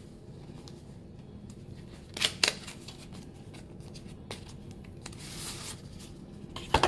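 Small cardboard makeup-palette box being handled and opened: a couple of sharp taps and clicks about two seconds in and again near the end, with a brief papery rustle between.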